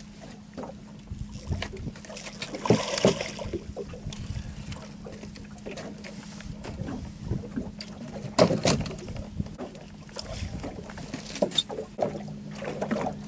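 Water splashing at the side of an aluminum fishing boat as a hooked catfish is brought in with grippers, followed by several sharp knocks on the boat's deck, over a steady low hum.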